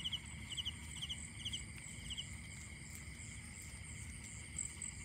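Night chorus of insects and frogs: a steady high-pitched trill under a quick chirping call repeated about twice a second, which stops about two seconds in.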